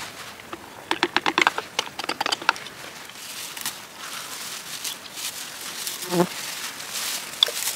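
Handheld berry-picking rake combing through wild blueberry bushes: a burst of rapid clicking and rattling about one to two and a half seconds in, then lighter scattered clicks and leaf rustle. A brief low pitched sound comes about six seconds in.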